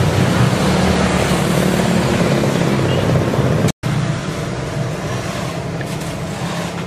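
A steady engine rumble, cut off suddenly for a moment about four seconds in.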